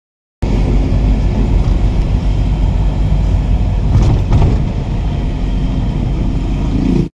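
Traffic and road noise from a vehicle moving on a highway: a loud, steady low rumble that starts abruptly about half a second in and cuts off abruptly near the end, with a brief swell about four seconds in.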